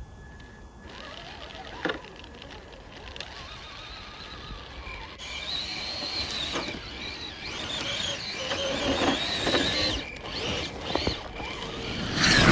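Traxxas TRX-4 RC crawler driving on tracks: a wavering, high motor-and-drivetrain whine with squeaks and creaks from the tracks, getting louder about five seconds in.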